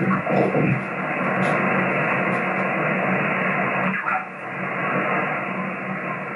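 Wolf HF transceiver's receiver audio while tuning the 20 m band: a steady hiss of band noise that stops above about 3 kHz, with a low steady buzz underneath, interference the operator puts down to his solar panel inverters. The noise dips briefly about four seconds in.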